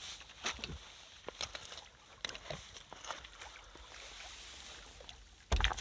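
Footsteps with scattered crunches and knocks on stony ground, then water sloshing and splashing near the end.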